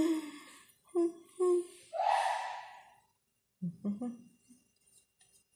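A person's voice: a few short murmured syllables, then a long breathy exhale about two seconds in that fades away, and a couple more syllables near four seconds.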